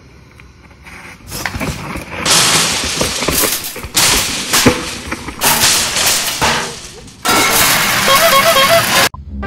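Wind noise and knobby tyres rattling over dirt and rock on a fast mountain-bike descent, picked up by an action camera. It is low for about the first second, then loud, jumping in level with sharp knocks, and it cuts off suddenly near the end.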